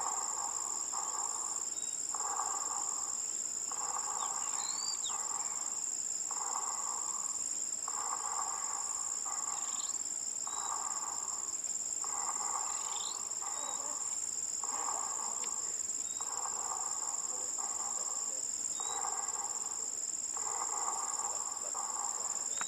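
Insects, likely crickets or cicadas, give a continuous high-pitched trill. Under it a lower pulsing call repeats in short bursts about once a second, often in pairs.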